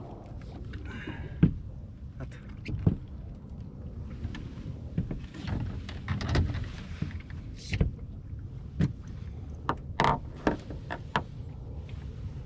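Irregular knocks and thumps on a small fishing boat at sea, over a steady low rumble.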